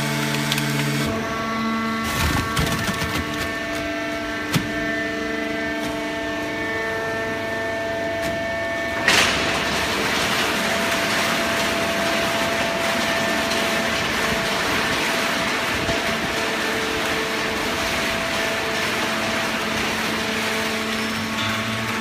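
Hydraulic waste paper baler plant running: a steady machine hum made of several tones, with a few knocks early on. A sharp bang comes about nine seconds in, and after it a steady hiss runs under the hum.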